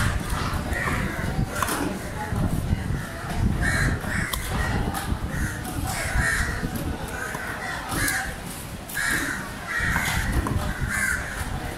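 Crows cawing over and over, short harsh calls every half second to a second, over a steady low rumble.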